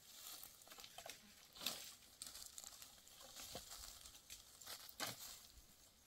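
Faint, irregular crackling and rustling of dry branches, twigs and leaves being handled and gathered by hand, with a few sharper snaps.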